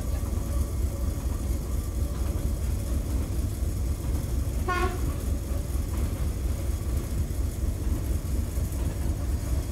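Steady low rumble inside the cab of an EMD G12 diesel-electric locomotive under way: its two-stroke V12 EMD 567 diesel engine running with wheel and track noise. A brief pitched tone sounds once about halfway through.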